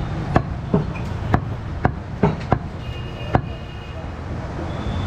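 Goat meat being chopped by a butcher with a heavy blade: about seven sharp, irregularly spaced chops in the first three and a half seconds, over a steady low background hum.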